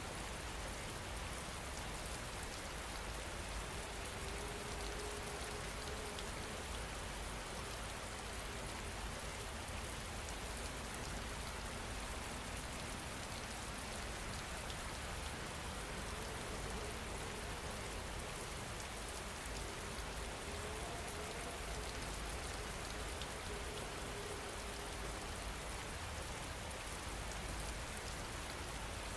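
Steady rain falling, an even, unbroken patter.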